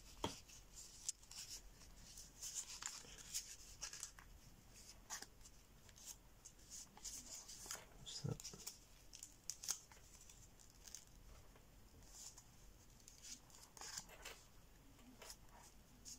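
Faint crinkling and rustling of a sheet of 80 g/m² printer paper being creased and pleated by hand, in short scattered crackles.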